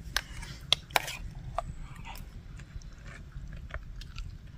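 A few sharp, scattered clicks and light clinks of utensils as food is dished out, over a faint low steady rumble.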